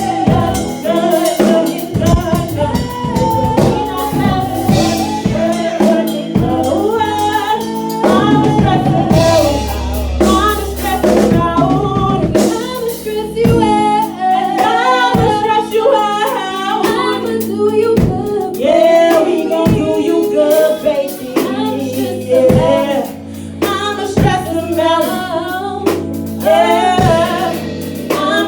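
A woman singing a melodic vocal line over a backing track, with a drum-kit beat of kick, snare and rimshot under a low bass.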